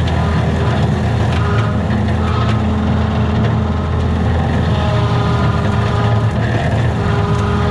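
Diesel engine of a Kubota SVL75-2 compact track loader running steadily at working throttle as the machine drives through brush, with occasional faint crackles of brush against it.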